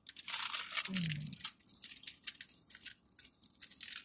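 Thin plastic candy wrapper being torn open and crinkled by hand to unwrap a soft lemon candy, a dense crackly rustle loudest in the first second or so. A short falling hum from a person about a second in.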